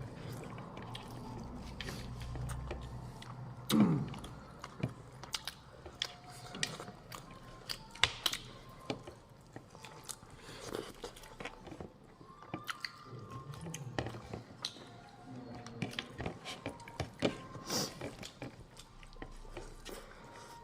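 Close-up eating sounds: a person chewing and biting into food, with many small wet clicks and smacks. A brief vocal sound about four seconds in is the loudest moment.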